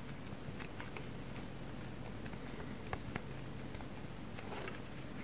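Buttons of a Sony TV remote control being pressed: a run of small irregular clicks, two of them louder about three seconds in, over a low steady hum.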